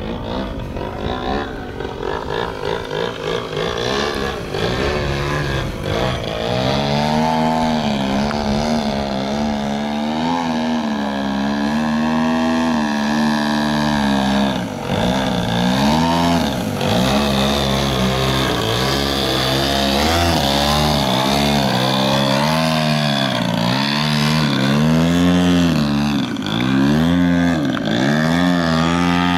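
Engine and propeller of a 35% scale Aeroworks Extra 260 radio-control aerobatic plane in flight, its pitch rising and falling again and again with throttle and passes. It grows louder about six seconds in as the plane comes low and close, and near the end the plane hangs nose-up near the ground.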